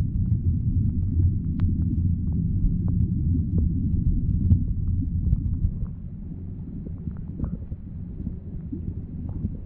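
Muffled underwater rumble of moving water heard through a submerged camera, with faint scattered ticks; it eases off a little past the middle.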